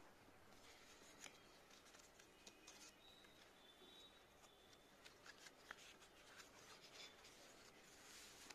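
Faint rustling and light ticks of paper as the pages of a small sketchbook are flipped through by hand.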